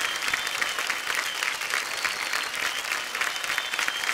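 Applause: a crowd clapping steadily.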